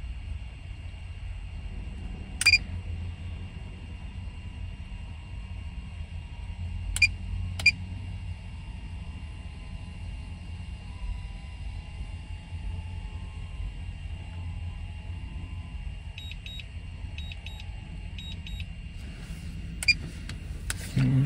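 Short electronic beeps sound now and then over a low, steady rumble inside a vehicle cabin. About three-quarters of the way through comes a run of quick beeps in small groups.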